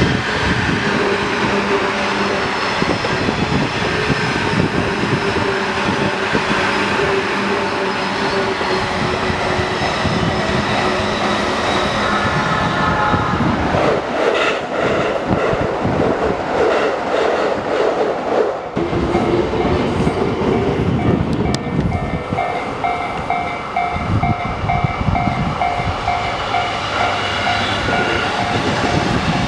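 Trains running through a railway level crossing while the crossing's warning alarm rings on in a steady repeating pattern. A train goes by loudest about halfway through, briefly drowning out the alarm.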